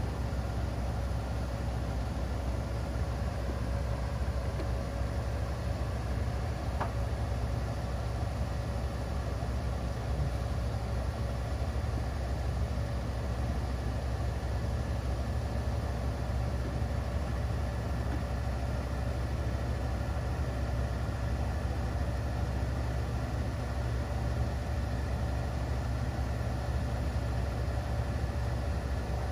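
School bus engine idling steadily while parked, a constant low hum with a faint steady whine above it.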